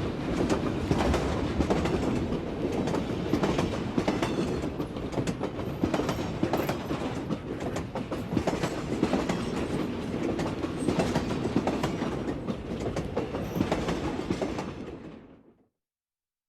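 A moving train heard from inside a carriage: a steady rumble with many short clicks and rattles from the running gear. It fades out near the end.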